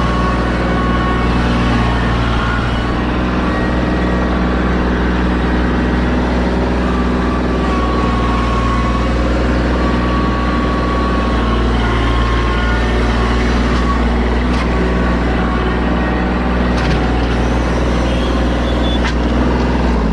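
Heavy truck engine running steadily at an even speed, with a few faint clicks in the last few seconds.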